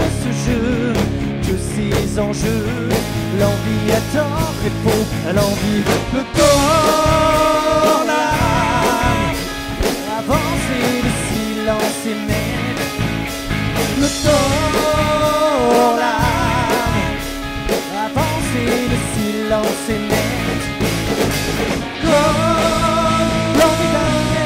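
Rock band playing live: a male lead voice sings over drums, bass guitar and guitar, in phrases separated by short instrumental stretches.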